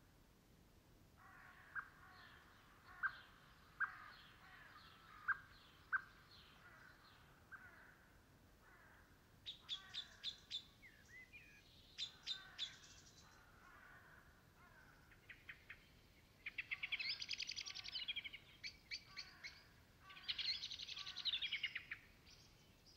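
Small birds calling and singing: scattered short chirps, a run of sharp high ticks, and two rattling trills of about two seconds each near the end.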